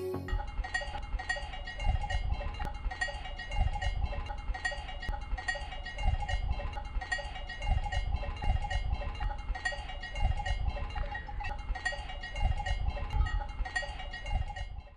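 Cowbells on grazing cattle clanking irregularly, several bells ringing at different pitches. Wind gusts buffet the microphone at the same time.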